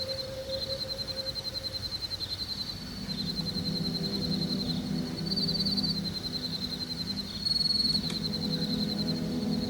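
Insects chirping in a fast, steady, pulsing trill. A low drone comes in about three seconds in, and there is a sharp click near the end.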